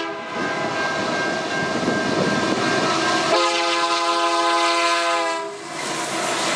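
Diesel freight locomotive's multi-note air horn: one blast cuts off at the start and a second blast of about two seconds sounds from about three and a half seconds in. Between and after the blasts, the locomotives and train rumble past close by.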